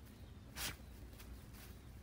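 A dog nosing through grass and dry straw, with one short, noisy sniff-like burst about half a second in over a faint low rumble.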